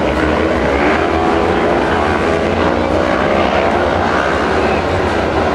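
Several 500 cc kart cross (sprint car) engines racing together, a dense, steady engine din whose pitch keeps rising and falling as the cars accelerate and back off.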